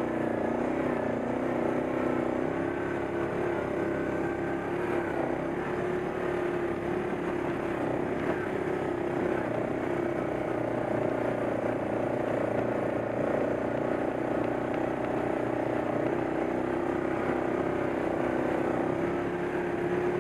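ATV engine running steadily at an even pitch, heard from on board the machine as it rides a rocky dirt trail.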